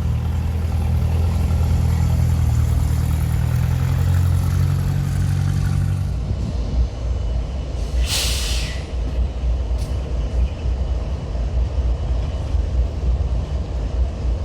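Diesel freight locomotive engines drone steadily, then fade out about six seconds in, leaving the low rumble of the train. About eight seconds in, air releases from the air brakes in one short hiss.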